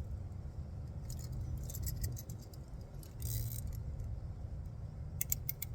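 Metal hand tools clinking and rattling as a socket wrench and extension are fitted, with a short scrape in the middle and a quick run of sharp clicks near the end, over a steady low rumble.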